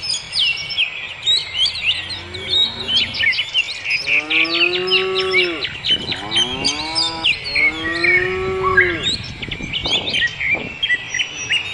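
A cow mooing twice, about four and eight seconds in, each a drawn-out call that rises and then falls in pitch, over continuous chirping of songbirds.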